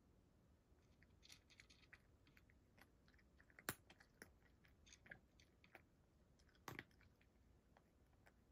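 A cat crunching dry kibble from a dish: faint, irregular crisp crunches, with two sharper, louder clicks, one in the middle and one near the end.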